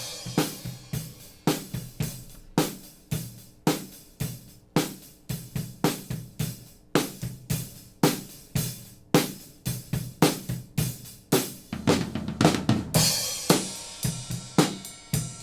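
Drum kit playing a steady beat of kick, snare and hi-hat, picked up by a pair of Behringer C-2 small-diaphragm condenser microphones as overheads and heard raw, without EQ or preamp. A cymbal crash rings out about thirteen seconds in.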